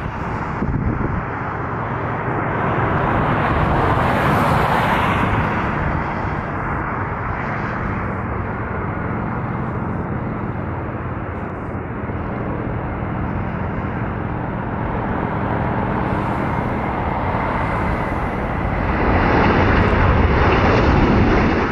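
Jet engines of a large wide-body airliner running loud and continuous as it passes, with a steady high whine over the rumble. The noise swells about four seconds in and again near the end, then cuts off abruptly.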